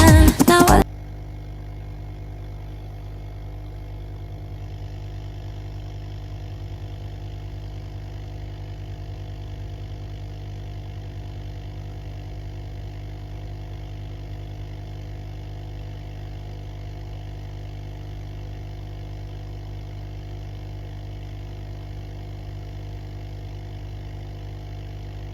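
Steady mechanical motor hum at a fixed pitch, running evenly without any change in speed; pop music cuts off about a second in.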